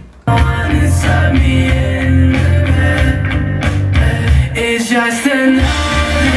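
Rock song with singing and guitar played back through a Technics SA-EX700 receiver and passive subwoofer, with heavy bass. The music cuts out for a moment at the start, then carries on.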